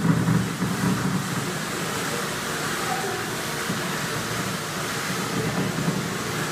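Tesla coil firing, its electric arcs discharging with a steady buzz.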